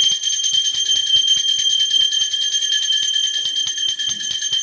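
Small brass puja bell rung rapidly and steadily during the lamp-waving aarti: a fast run of clapper strikes, many a second, under a high ringing tone that holds throughout.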